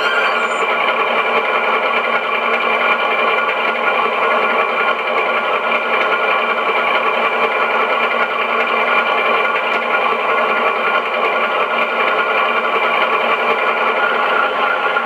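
Sampled twin Maybach diesel engine sound of a Class 52 Western, played by an ESU LokSound XL decoder through a small speaker in a Heljan model's fuel tank. The engines run at a steady note, thin, with no deep bass.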